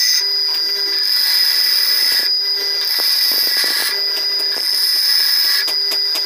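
Bench grinder running while a steel workpiece is pressed against the wheel, giving a hissing, high grinding screech over the motor's steady hum. The grinding sound breaks off briefly a few times as the piece is lifted from the wheel.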